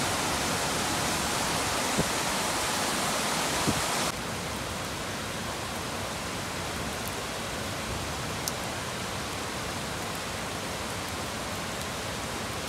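Heavy rain falling, a steady hiss that drops a little in level about four seconds in, with a few faint ticks.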